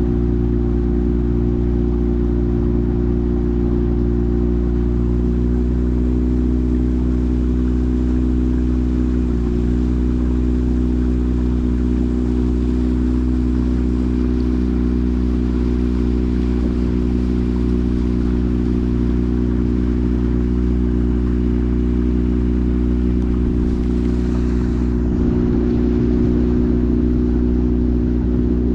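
Small motor boat's engine running steadily at an even speed, with no change in pitch.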